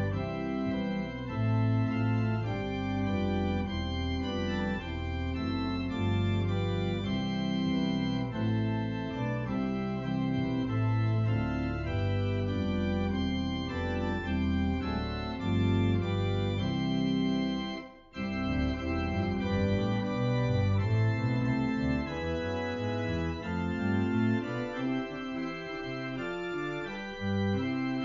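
Two-manual church organ playing sustained chords over a pedal bass, with a brief break about 18 seconds in, after which a bass line climbs steadily upward.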